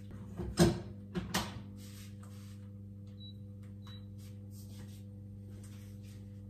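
Rice cooker being loaded and started: the inner pot of washed rice knocks into place about half a second in, a second knock follows, then two short high button beeps come around three and four seconds in. A steady low electrical hum runs underneath.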